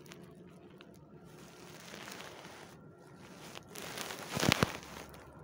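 Rustling and crinkling noise that builds gradually, with a loud burst of rustling about four seconds in.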